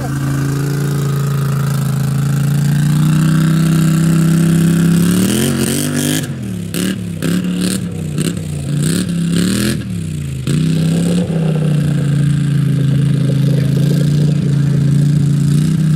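Off-road vehicle engine running at a steady speed, then revved up and down about five times in quick succession in the middle, then held steady again.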